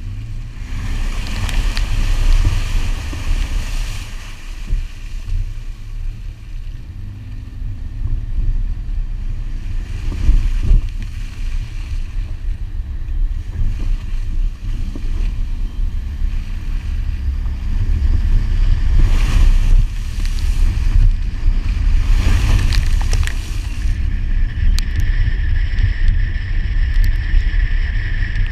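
2001 Subaru Forester's flat-four engine and tyres driving hard off-road through water, mud and sand, heard from outside the car with heavy wind buffeting as a deep, continuous rumble. Near the start there is a rush of water splashing as it drives through a flooded stretch, and in the last few seconds a steady high whine joins in.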